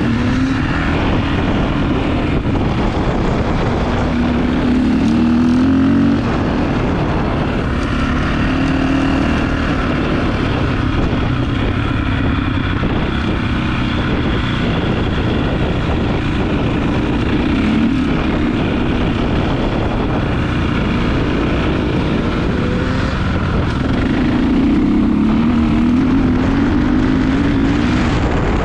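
Enduro dirt bike engine running hard on a trail ride, its revs rising and falling again and again with the throttle and gear changes.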